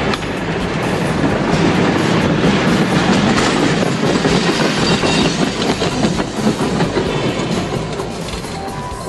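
A train passing close by, its wheels clattering over the rails in a dense, loud rumble, with a faint high squeal about five seconds in. It eases off slightly near the end.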